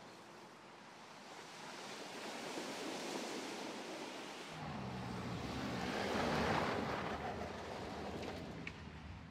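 Mercedes-Benz GLC 300d SUV driving off-road: its four-cylinder diesel engine and tyres on dirt heard as a rushing noise. About halfway through, a low engine hum comes in and the sound swells to a peak, then eases off.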